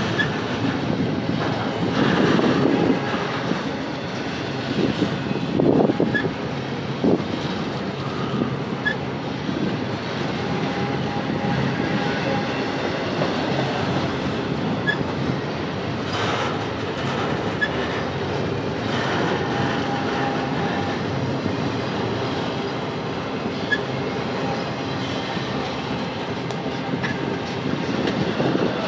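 Double-stack intermodal well cars of a freight train rolling past, a steady rumble and clatter of steel wheels on rail, with a few louder clunks in the first several seconds.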